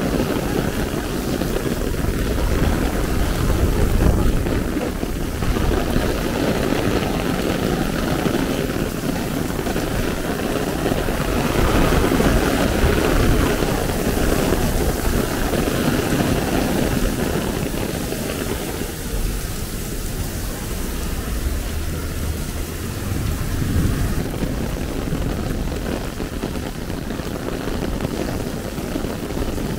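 Heavy rain falling on an umbrella and wet pavement, with cars swishing through standing water on the road; the noise swells a few times as cars pass.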